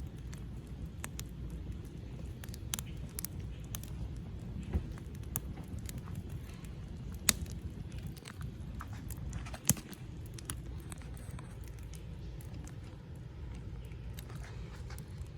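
Wood campfire crackling, with scattered sharp pops over a steady low rumble; two pops, about seven and ten seconds in, are louder than the rest.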